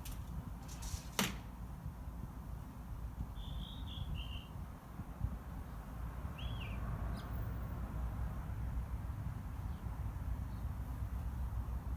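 A small bird chirping: three quick high chirps about three and a half seconds in and one more around six and a half, over a steady low rumble. A sharp click a little after one second.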